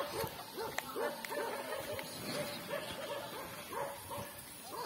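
A dog barking over and over in quick succession, about three short barks a second.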